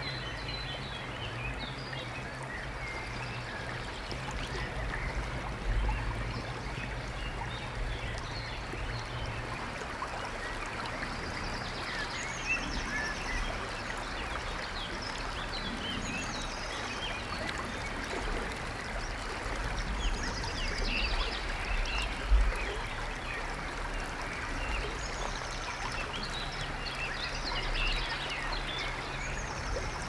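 Running stream water with birds chirping and singing, over a steady low rumble. A brief thump stands out about two-thirds of the way through.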